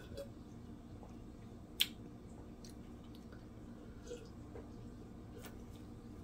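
Quiet room tone with a few faint clicks and one sharper click about two seconds in.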